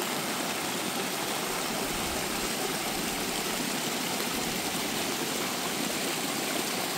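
Small rain-fed stream running over rocks down a wooded slope: a steady rush of water splashing over stones.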